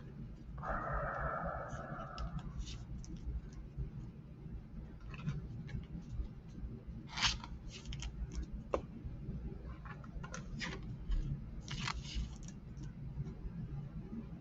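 Trading cards and their packaging being handled on a table: a short sliding rustle about a second in, then scattered light clicks and scrapes.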